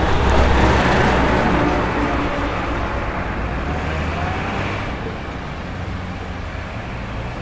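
City traffic at a crossroads: cars and other vehicles running and passing. The sound is loudest in the first second or two as a vehicle goes by close, then settles to a steadier traffic rumble.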